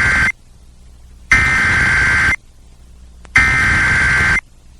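Emergency Alert System SAME header: harsh digital data bursts, each about a second long with about a second's gap. The first burst cuts off just after the start, and two more follow. The header encodes the severe thunderstorm warning that is read next.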